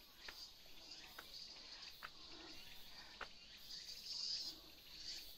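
Faint high-pitched insect chorus in summer woodland, swelling and fading, with soft ticks roughly once a second.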